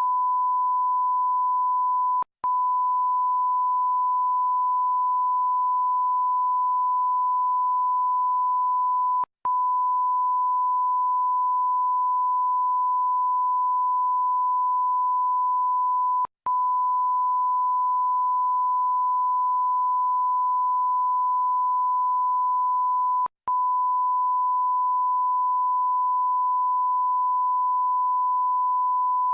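Electronic bleep sound effect: one steady, pure, high-pitched beep tone, broken by a short gap four times, about seven seconds apart.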